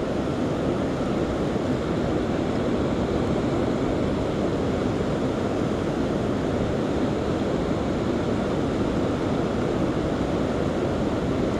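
Steady rush of moving water, the river current swirling past the rocks, with no distinct events.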